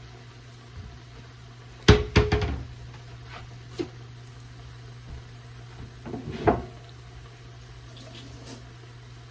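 Kitchen items being handled: a few clattering knocks and clinks over a steady low hum. The loudest is a quick cluster about two seconds in, with a brief ring, and another comes around six seconds.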